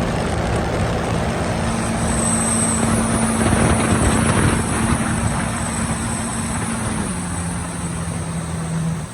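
Sea-Doo jet ski engine running at a steady throttle, with the rush of water and wind over it. The engine note steps down about seven seconds in and falls away just before the end as the throttle is eased off.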